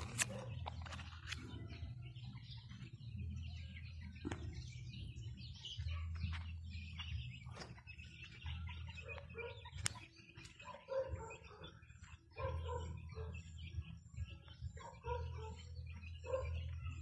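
Small birds chirping over and over, joined about halfway through by repeated lower calls, over a low rumble that comes and goes.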